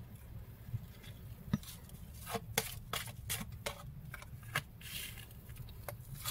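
Oracle cards being drawn off a deck and laid down one by one on an artificial-grass mat: a scatter of soft taps and flicks of card stock over a faint low hum.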